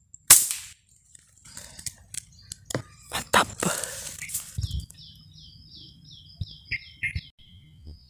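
A single sharp air-rifle shot about a third of a second in, followed by scattered clicks and rustle. A run of quick, falling chirps follows in the second half.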